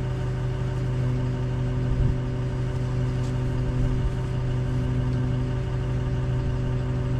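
Engine of a lifting machine idling steadily at an even pitch, with a small knock about two seconds in.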